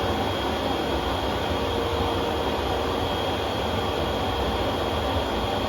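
Eureka upright vacuum cleaner running steadily, with a steady high whine over its motor and airflow noise. It is running with the hose attached but drawing no suction at the hose, because the selector is still set to floor rather than tools.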